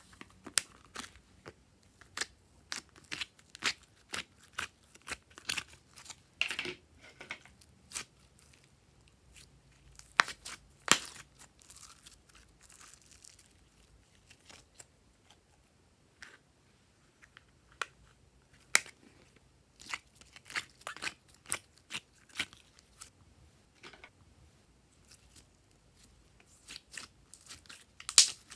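Slime being squeezed, poked and stretched by hand, giving irregular sharp clicks and pops in flurries, with a quieter spell in the middle and one loud pop near the end.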